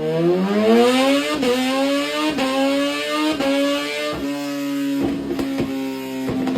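Suzuki vehicle engine revving: its pitch climbs over the first second and a half, then holds fairly steady at high revs. Short dips in the tone come roughly once a second.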